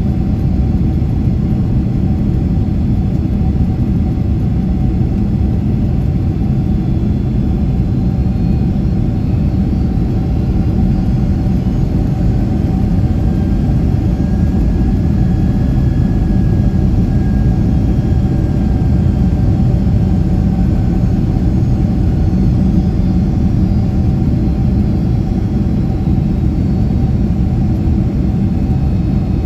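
Steady low rumble of a Boeing 767-300ER's jet engines and airflow heard inside the cabin beside the wing, on approach for landing, with a faint whine that swells and fades in the middle.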